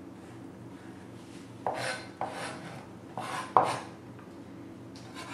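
Kitchen utensils and dishes clinking and clattering, about five sharp knocks with a short ring after each, the loudest about three and a half seconds in, over a steady low hum.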